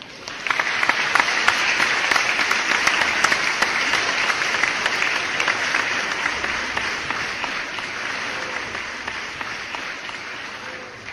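Audience applauding, a dense patter of many claps that slowly dies down over the second half.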